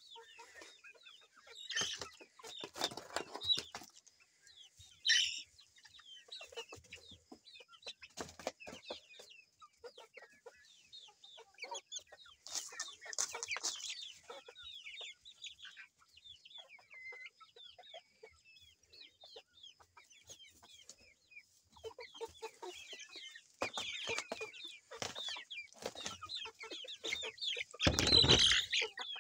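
Game-breed chickens clucking and calling in short, scattered bursts, with scuffling and rustling as they move about. A loud bump near the end.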